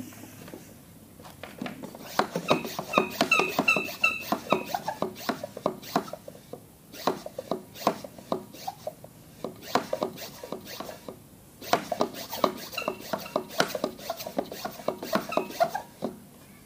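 Hand-pumped pressure container being pumped to build pressure for priming an engine's oil system: quick repeated plunger strokes with a squeak on many of them, in three bouts with short pauses between.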